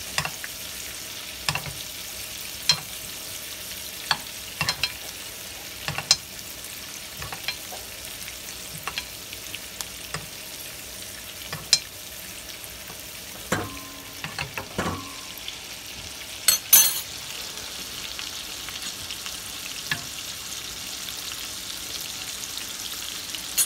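Filet mignon steaks frying in a pan of foaming butter sauce, a steady sizzle, while a metal spoon bastes them, clicking against the pan every second or so. A few louder scrapes and clatters of the spoon come about two-thirds of the way through.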